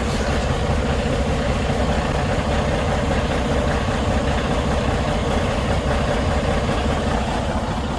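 Semi truck's diesel engine idling steadily, warmed up rather than on a cold start. The owner suspects bad injectors, an EGR cooler or a head gasket behind the continuous white-gray exhaust smoke it is making.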